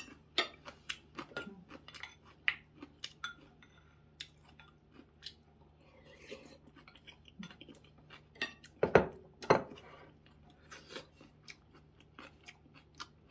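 Close-up eating sounds: a person chewing, with many short clicks and clinks of chopsticks and a spoon against plates and bowls. Two louder knocks come about nine seconds in.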